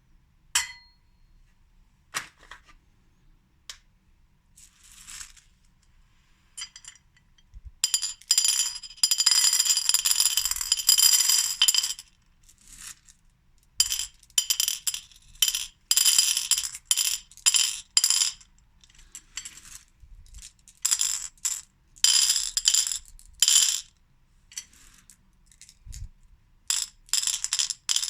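Skittles candies dropping and clattering onto a plate. First come a few scattered single clicks, then a dense pour lasting about four seconds, then a string of short bursts of rattling.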